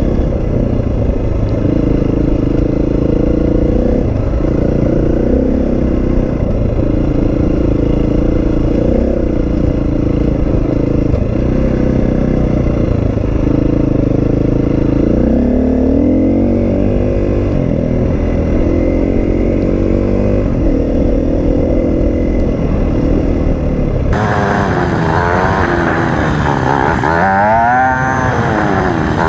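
Husqvarna FE350's single-cylinder four-stroke engine running under load on a dirt trail, its pitch rising and falling with throttle and gear changes. About five seconds before the end the sound turns brighter, with quick rises and falls in revs.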